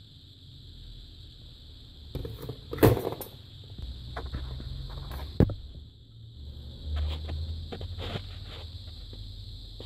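Handling noise from a TV power-supply circuit board being turned over and set down: a cluster of knocks and clicks about two to three seconds in, one sharp click near the middle, and smaller clicks later, over a steady high hiss.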